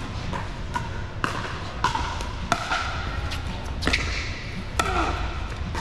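Pickleball paddles striking a plastic ball during a rally: a string of sharp, hollow pocks at irregular intervals, about a dozen, each ringing briefly in a large indoor hall, over a steady low rumble.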